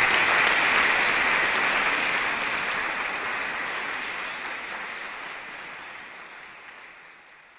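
Audience applauding, loudest at first and then dying away steadily until it fades out near the end.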